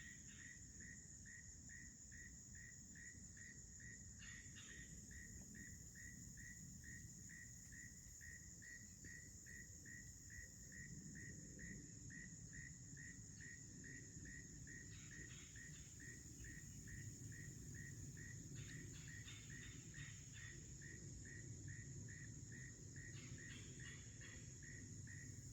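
Faint insect chorus: a steady high-pitched drone with an insect chirping evenly about twice a second beneath it. A few short clusters of clicks come and go, and a low rumble grows about halfway through.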